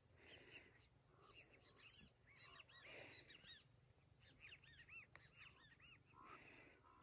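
Faint bird calls: many short, arching chirps in quick runs, with a few brief noisy bursts among them.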